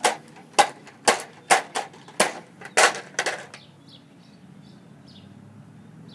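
Repeated sharp knocks, about two a second, as a bottle filled with liquid is struck over and over in an attempt to break it open. The knocks stop about three and a half seconds in.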